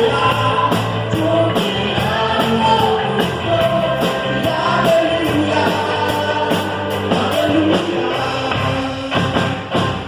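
Worship band playing live with a singer, the drum kit keeping a steady beat of regular hits under the vocal line; near the end the singing drops back and the drums stand out.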